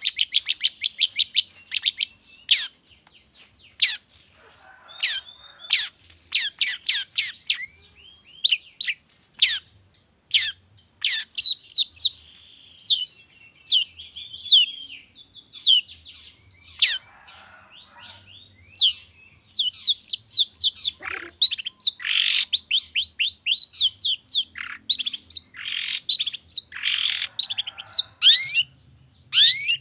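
Long-tailed shrike (cendet) singing: rapid runs of sharp, downward-sweeping chirps, broken now and then by harsh scratchy notes.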